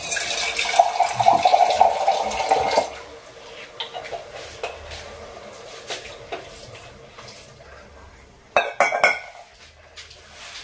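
Water poured into a hot wok of cooking Maggi noodles, hissing loudly for about three seconds, then settling to a quieter simmer. A few sharp clinks of a metal utensil against the pan come near the end.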